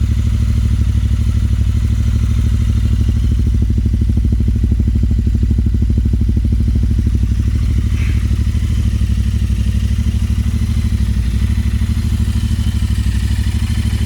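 Royal Enfield Interceptor 650's parallel-twin engine idling steadily through full stainless-steel aftermarket headers and Powerage exhausts. A loud, even pulse holds at one speed, with no revving.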